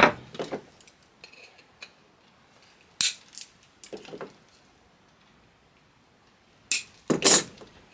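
Steel hand tools clicking on a wooden workbench: a knock as the claw hammer goes down at the start, a few light clicks, then two or three sharp snaps near the end as cutters nip a steel panel pin.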